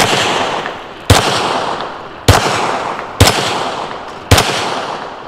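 Five pistol shots fired at a steady pace, about one a second, each sharp crack trailing off in a long echo.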